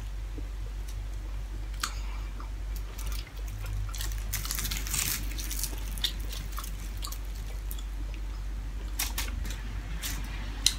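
Close-miked eating with the hands: chewing and wet mouth and lip smacks as a person eats rice and fried dried milkfish, with scattered sharp clicks and a thicker run of wet smacking about halfway through. A steady low hum lies underneath.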